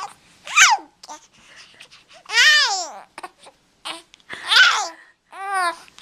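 A baby babbling and squealing: about four high-pitched vocal calls, each rising then falling in pitch, with small noises in between.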